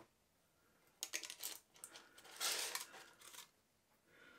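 Kitchen tongs clicking and scraping against an air fryer basket and its paper liners as burgers are lifted out. It comes in a few short clattery bursts, the longest about halfway through.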